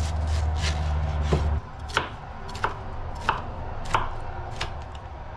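Knife chopping pineapple on a cutting board, with sharp strikes about every two-thirds of a second. Under the first part runs a low hum that cuts off about a second and a half in.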